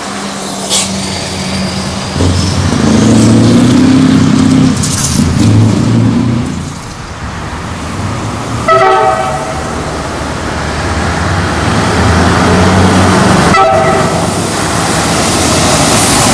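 Scania V8 truck engines running and pulling away, with two short horn blasts, about nine and thirteen and a half seconds in.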